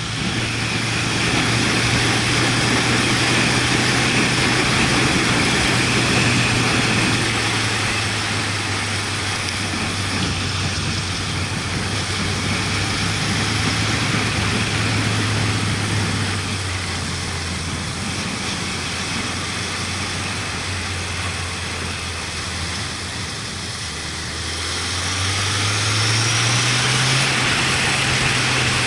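Motorcycle engine running at road speed, heard from the bike with wind rushing over the microphone. The engine note sinks lower through the middle and climbs again a few seconds before the end as the bike accelerates.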